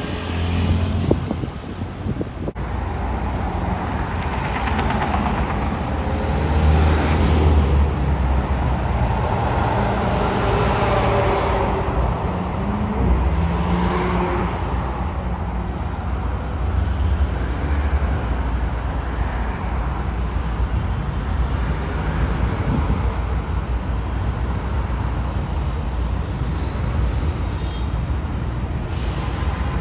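Road traffic: motor vehicles passing with a steady low rumble, several swelling and fading as they go by.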